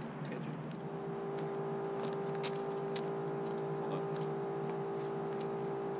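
A steady, unchanging tone starts about a second in and holds at one pitch, coming from the 5-inch FPV quadcopter hanging in a tree. Faint scattered clicks sit over it.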